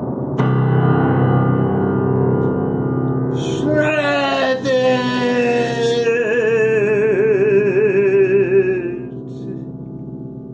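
Closing music: a struck, gong-like note about half a second in rings over low held notes. From about four seconds in, a high wavering tone slides slowly downward, then fades near the end.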